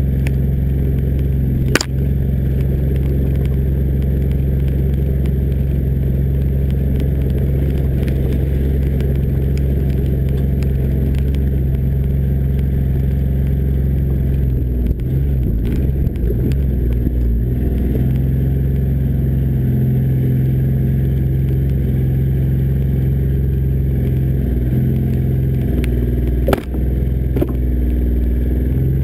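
John Deere Gator 855D utility vehicle driving on a dirt track, its three-cylinder diesel engine running with a steady low drone, heard from beside the front-left wheel. Sharp knocks sound about two seconds in and near the end. About fifteen seconds in the drone is jolted and uneven as the vehicle comes down from a small jump.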